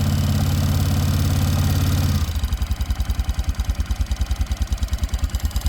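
ATV (four-wheeler) engine just started in the cold, running at a fast, steady idle and then dropping about two seconds in to a lower, evenly pulsing idle.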